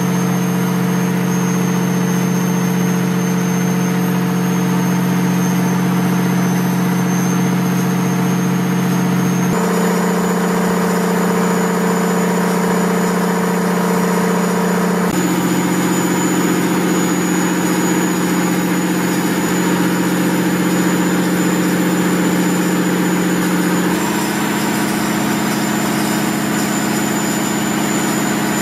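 Steady drone of running machinery in a submarine's auxiliary machinery room: several fixed hum tones under a thin high whine, with no pauses. The mix of tones shifts abruptly three times, about a third of the way in, about halfway and near the end.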